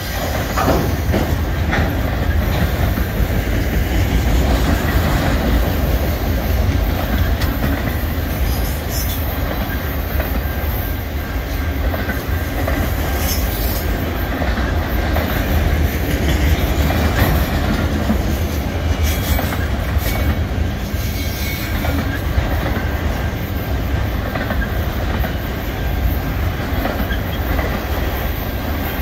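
Freight train of auto rack cars rolling steadily past, with the rumble of steel wheels on rail and wheels clacking over the rail joints. A faint high wheel squeal runs beneath it.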